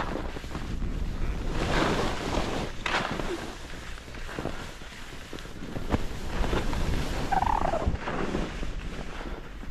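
Skis scraping and carving across the snow in a hiss that swells with each turn, with wind buffeting the microphone; a short squeal-like sound comes through near the end.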